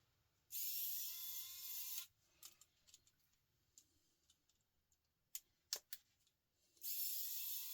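Small electric screwdriver whirring in two short runs of about a second and a half each, one near the start and one near the end, each rising briefly in pitch and then holding, as it backs out tiny screws. A few small clicks come between the runs.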